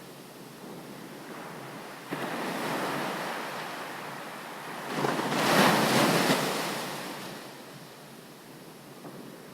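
Sea waves breaking on a beach: one wave comes in about two seconds in, a bigger one crashes about halfway through and then washes back and fades.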